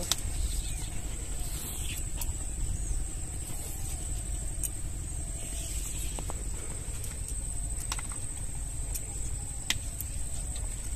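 Water lily stems being peeled and cut by hand on a boti blade: a handful of sharp snaps and clicks, a couple of seconds apart, over a steady low rumble and a thin high steady whine.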